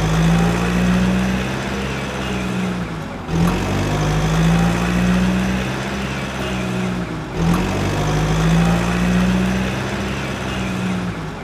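Engine running steadily, a low even hum that dips briefly and picks up again twice, about four seconds apart, like a repeating loop of an engine sound effect.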